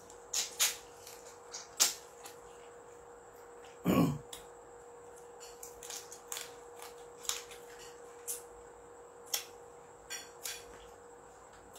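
Close-up mouth sounds of a man eating with his fingers: wet lip smacks and sucking clicks at irregular intervals. About four seconds in there is one louder, deeper thump.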